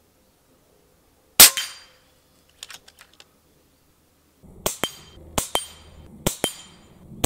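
A single sharp shot from an FX Panthera .25 calibre PCP air rifle, followed by a few faint clicks. Then a hanging steel gong target is struck again and again, about four quick double metallic pings with ringing, over outdoor background noise.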